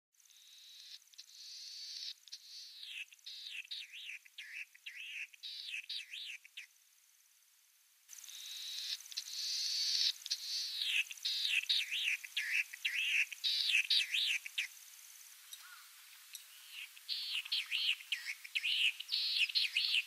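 Latham's snipe singing its territorial song: three bouts of quickly repeated notes, each sweeping downward.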